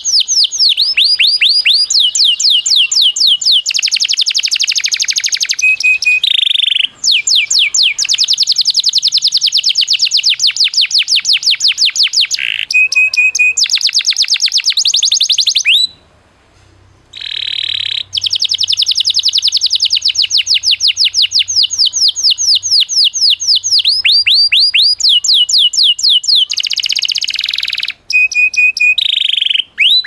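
Masteran tutor recording of small songbirds: long, fast trills of high notes that each sweep downward, several notes a second, broken by short pauses and one brief near-silent gap around the middle.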